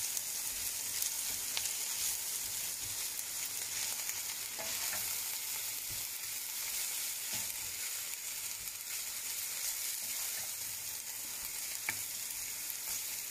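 Stir-fried vegetables sizzling steadily in oil in a pan as they are mixed with spices, with a few light clicks of the spoon against the pan.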